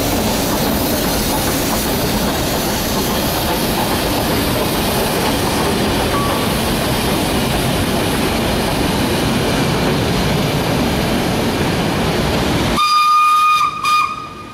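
A steam locomotive and its train pass close by with a steady hiss and rumble. About thirteen seconds in, that noise cuts off abruptly and the steam whistle sounds as a steady pitched note, broken once into two short blasts.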